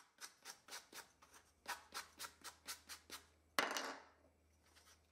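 Faint short strokes of a sanding block rubbed across the edges of a small plywood piece, about four a second, cleaning off wood burrs. A little past halfway comes one longer, louder scrape.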